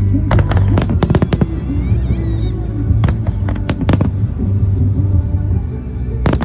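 Fireworks going off in clusters of sharp bangs: a quick run in the first second and a half, more about three to four seconds in, and two more near the end. Music with a steady low bass plays underneath.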